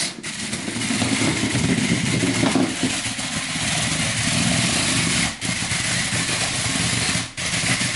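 WowWee CHiP robot dog's wheel drive motors whirring steadily as it manoeuvres on its wheels to line up with its ball for the magnet to catch. The whir cuts out for a moment twice, about five and seven seconds in.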